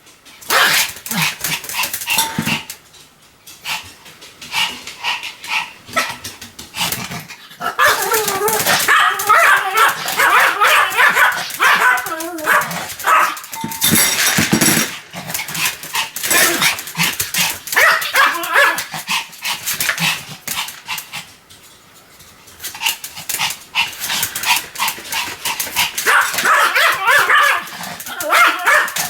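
A Pomeranian barking rapidly and repeatedly in long runs, easing off to quieter stretches a few seconds in and again about two-thirds of the way through.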